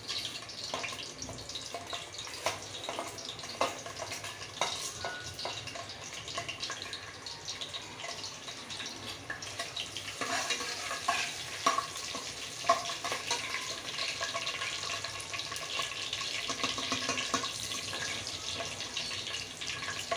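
Whole spices (bay leaves, cloves, peppercorns, cardamom) sizzling in hot oil in an aluminium pressure cooker, with a slotted spoon clicking and scraping against the pot as they are stirred. The sizzle grows stronger about halfway through.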